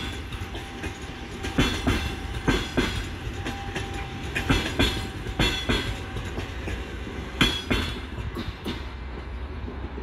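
Passenger train coaches rolling past, their wheels clicking over the rail joints in repeated pairs of knocks about once a second, over a steady low rumble.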